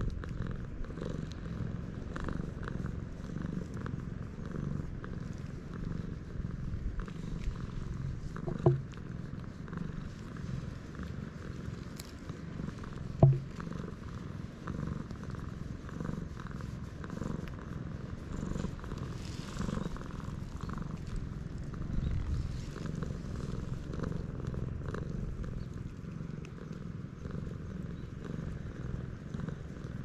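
Domestic cat purring steadily while being stroked under the chin. Two brief, louder pitched sounds break in, about nine and thirteen seconds in.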